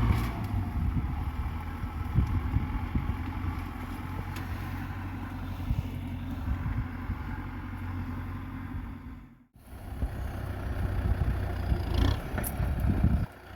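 Kubota M6040 tractor's diesel engine running with a steady low rumble and some clatter. It cuts out abruptly for a moment about two-thirds of the way through, then resumes.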